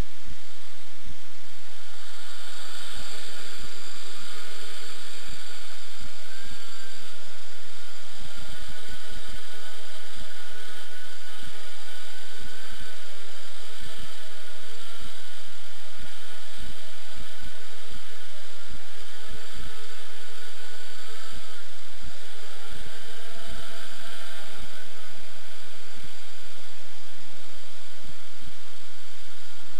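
Electric motors and propellers of a v-tail octocopter spinning up about two seconds in, then whining in flight, the pitch rising and falling as the throttle changes. Irregular low buffeting on the microphone.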